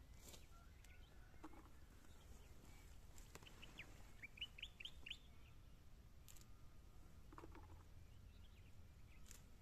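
Wild birds calling faintly, with a quick run of six or seven short, high, chirping notes in the middle and a few scattered fainter calls.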